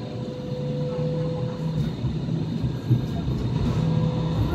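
Hong Kong Light Rail car running along the track, heard from inside the car: a steady rumble with a low hum and a thin steady whine that fades out and briefly returns.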